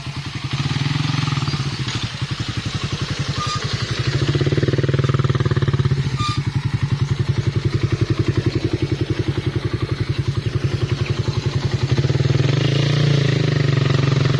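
Motorcycle engine running with a rapid, even putter, getting louder about four seconds in.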